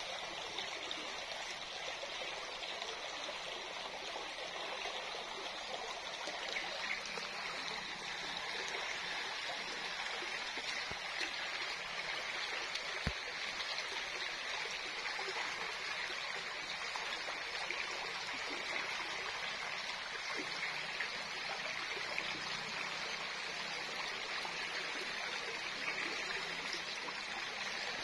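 Shallow river running steadily over stones in a riffle: a continuous rushing of water.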